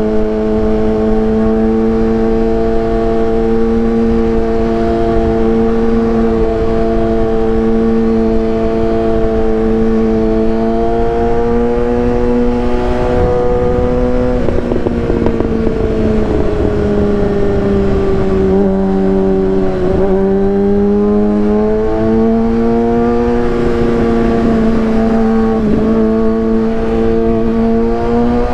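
A 2015 Kawasaki ZX-6R 636's inline-four engine running through a Racefit aftermarket exhaust while being ridden. The engine note holds steady, falls in pitch about halfway through, then climbs again toward the end.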